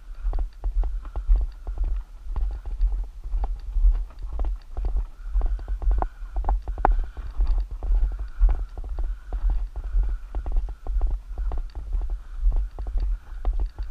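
Footsteps of people walking on a gravel-strewn dirt road, a quick run of short crunching steps, several a second, over a constant low rumble.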